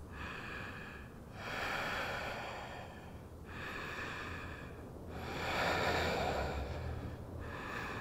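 A woman's slow, deep breathing, several long breaths in and out of about two seconds each, taken while she holds a one-legged yoga balance.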